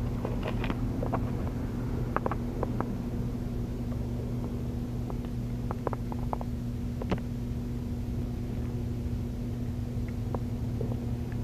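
Steady low mechanical hum, like an idling engine or machinery, with a few small clicks and ticks scattered through it.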